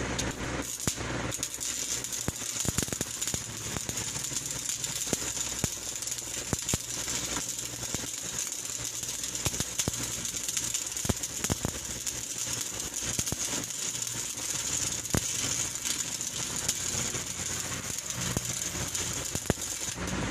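Electric arc welding: a steady crackling hiss with many irregular sharp pops, over a low hum.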